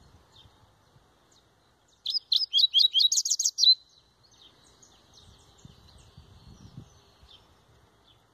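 Double-collared seedeater (coleiro), of the Laranjeira song line, singing one short, fast phrase of about a dozen high, rapid notes that ends on a brief held note, about two seconds in. Quiet scattered chirps can be heard around it.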